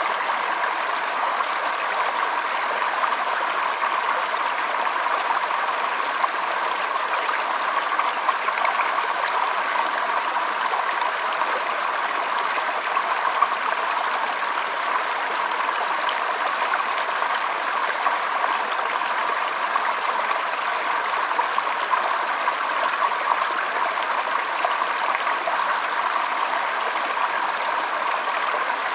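Stream water flowing and trickling steadily over stones, an even babbling without pauses.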